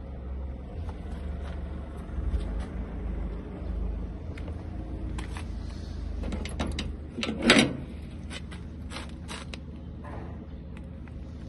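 Batching machine running with a steady low hum. From about five seconds in there is a run of metallic clicks and knocks, the loudest a single clank about seven and a half seconds in.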